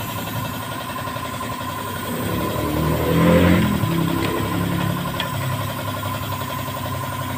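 An engine running steadily, swelling louder and rising then falling in pitch for a moment about three seconds in.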